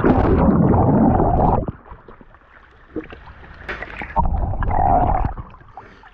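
Muddy, flood-swollen creek water churning and gurgling around an action camera on a pole as it dips through and under the surface. The sound is muffled, loud for the first second and a half, drops, then comes back in two more bursts near the end.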